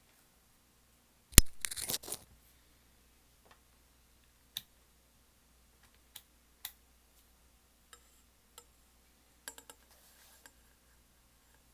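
A loud sharp click followed by a short crackle, then scattered light clicks and taps, like small objects or wires being handled. No motor is running.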